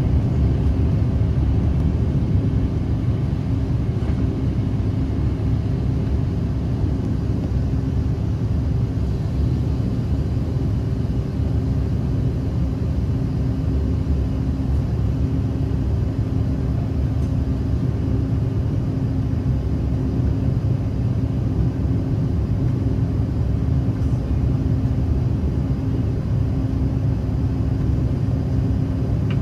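Bombardier CRJ-700's rear-mounted GE CF34 turbofans heard from inside the cabin, running steadily at low power: a constant low rumble with two steady hum tones over it and no rise toward takeoff thrust.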